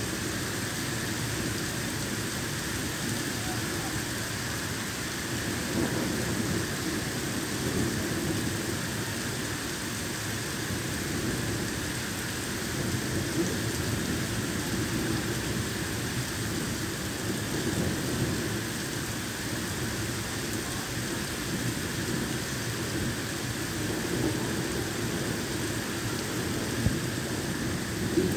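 Heavy rain pouring down onto a flooded street, a dense steady hiss that swells and eases a little, with a couple of sharp taps near the end.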